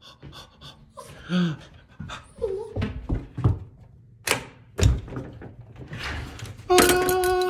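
A dog panting and moving about, with a few knocks of a door and its latch around the middle. Near the end comes a short, steady ringing tone.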